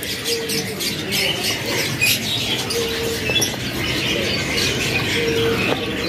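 A crowded cage of canaries chirping and twittering with quick, high calls, with wings fluttering against the cage. Three short low notes come about a second in, around the middle and near the end, over a steady murmur of market background noise.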